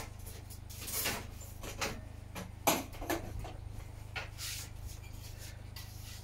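A few scattered knocks and short rustling noises over a steady low hum, the sharpest knock a little under halfway through.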